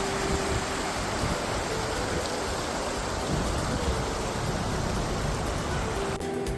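Rushing river water, a steady dense hiss, with faint background music underneath. Near the end the water sound cuts off abruptly and the music comes through more clearly.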